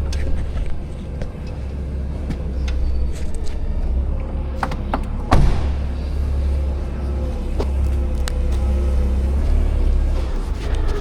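Semi-truck running on the road: a steady low rumble with scattered light clicks and knocks.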